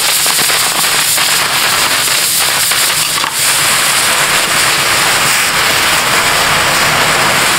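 Aluminium pressure cooker venting a strong jet of steam from its valve: a loud, steady hiss with a light crackle. The cooker is letting off its pressure after the chickpeas have cooked, before the lid is opened.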